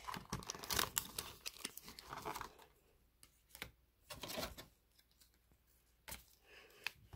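Foil booster-pack wrappers crinkling and rustling as they are handled: dense, irregular crackles for the first couple of seconds, then only a few scattered crinkles.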